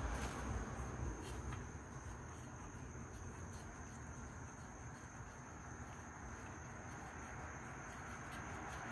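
Crickets chirring in a steady high continuous tone, over a faint low rush of engine oil draining from the sump into a drain pan.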